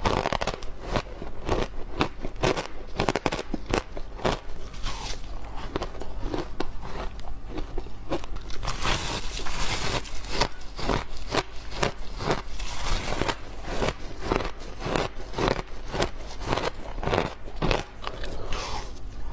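Refrozen shaved ice being bitten and chewed: a continuous run of crisp, crackling crunches, many small cracks a second.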